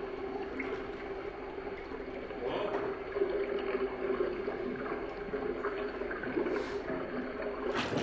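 Water gurgling and draining out of a giant toilet bowl crowded with floating plastic eggs, in a steady, noisy rush.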